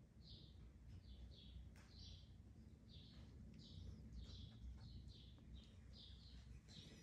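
Faint, short high-pitched chirps repeating about two or three times a second over a low steady room hum.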